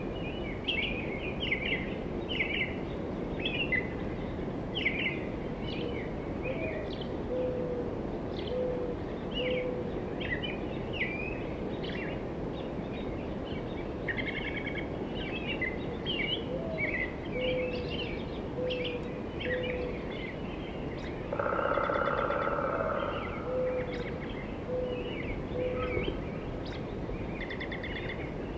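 Woodland bird chorus: many small birds chirping and trilling. A lower call of short, evenly spaced notes repeats four or five at a time, three times over. A louder, denser call lasts about a second and a half a little after the middle.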